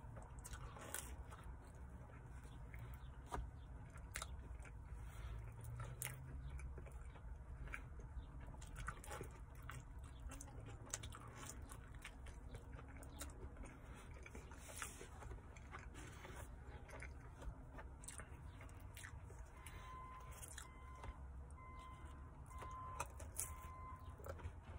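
A person chewing and biting pizza crust close to the microphone, with many small mouth clicks.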